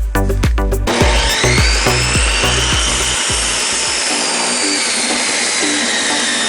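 Table saw running, a loud steady whirring noise with a high whine that comes in about a second in and sags slightly in pitch, over background music whose beat drops out about four seconds in.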